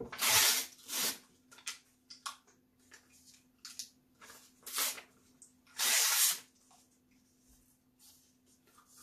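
A sheet of printed paper torn with the teeth and chewed: loud ripping tears at the start and again about six seconds in, with softer crinkling and chewing between.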